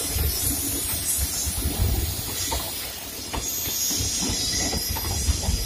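Diesel-hauled Indian Railways passenger train passing close by: a low rumble with a hiss, and from about two seconds in the wheels click and clatter irregularly over the rail joints as the coaches roll past.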